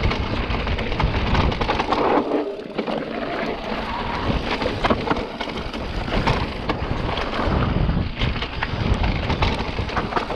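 Santa Cruz Heckler electric mountain bike riding fast down a dirt forest trail: tyres crunching over dirt and twigs, with a constant clatter of small knocks and rattles from the bike over the rough ground, and wind rumbling on the microphone.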